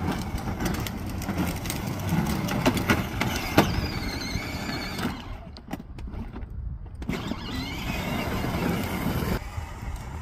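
Power Wheels Barbie Jeep Wrangler ride-on toy driving over concrete and asphalt: its hard plastic wheels rumble and rattle with scattered knocks, under a thin whine from its small electric drive motors. The noise drops briefly just after the middle.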